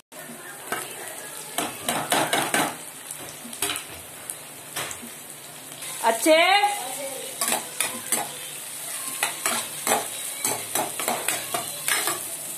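Vegetables frying and sizzling in a kadai while a spatula stirs and scrapes them against the pan, with irregular clacks of the spatula on the metal. A brief warbling squeak about six seconds in.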